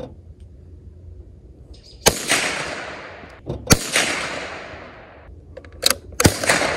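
.22 rifle gunshots: three sharp cracks, about two seconds in, again a second and a half later, and once more near the end, each trailing off in a long echo. A fainter sharp click comes just before the last shot.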